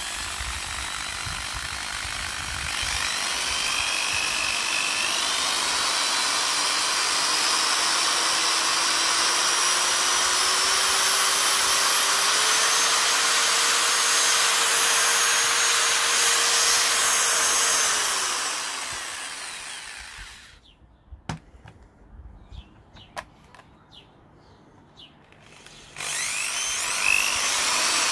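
Skil 1424H two-speed corded electric drill running with no load. Its motor whine climbs in pitch as it speeds up, then holds steady at top speed. About two-thirds through it spins down, a few clicks follow, and it starts up again near the end.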